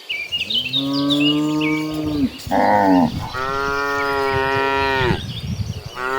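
Cattle mooing in long, drawn-out calls one after another: a long moo starting just after the start, a short higher call a little before the middle, another long moo, and a new one beginning near the end. Faint high chirps sound near the start.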